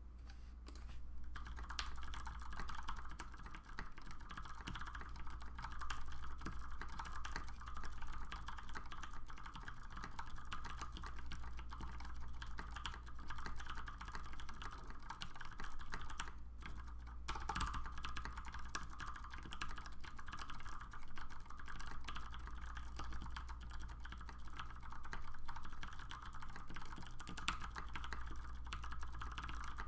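Typing on an LZ Mini MX custom mechanical keyboard with tactile Cherry MX Clear switches on 65 g gold springs, lubed with Krytox 205/105, under PBT dye-sub keycaps: a steady, irregular run of key clacks that starts about a second in, breaks off briefly about halfway, then goes on.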